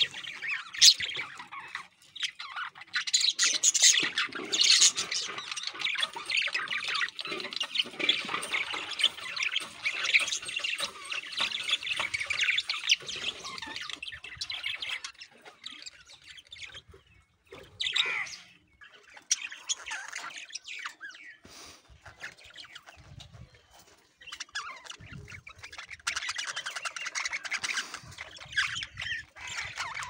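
A flock of budgerigars chattering, many birds calling at once: busiest through the first half, sparser in the middle, and picking up again near the end. The calls are presented as breeding-season mating sounds.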